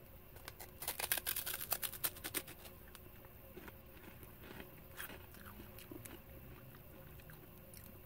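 Crunchy Umaibo corn puff stick being bitten and chewed: a quick run of crisp crunches for a couple of seconds, then quieter chewing with a few scattered crunches.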